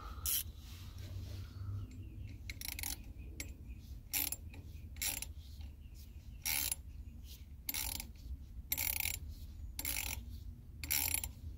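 Ratchet wrench clicking in short, uneven strokes, about one a second, as the retaining nut on a turbo compressor wheel is run down and snugged.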